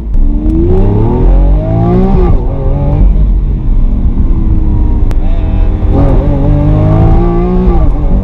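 Lamborghini Aventador's V12 at full throttle, heard from the open-top cabin. The pitch climbs, drops at an upshift of the single-clutch gearbox a little over two seconds in, holds steady for a few seconds, then climbs again and drops at another shift near the end.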